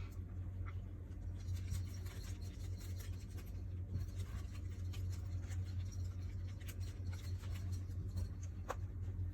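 Faint scratching and rustling with scattered light clicks, over a steady low hum.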